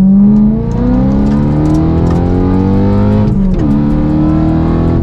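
BMW E92 M3's 4.0-litre V8 under hard acceleration, heard from inside the cabin. The engine note climbs steadily in pitch and falls sharply twice, about half a second in and again past three seconds in, as it shifts up a gear.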